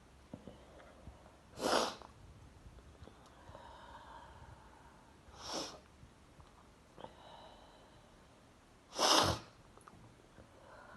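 A person sneezing three times, about three and a half seconds apart, the middle sneeze the weakest, set off by sneezing powder. There are faint breaths between the sneezes.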